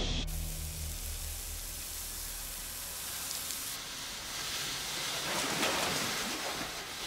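A steady hiss that cuts in abruptly just after the start and swells for a while about five to six seconds in.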